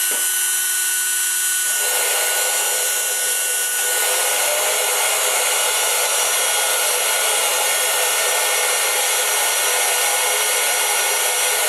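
Dremel rotary tool running at high speed as the spindle of a CNC machine, a steady high whine with a hiss of cutting. The noise grows fuller about two seconds in and a little louder again about four seconds in.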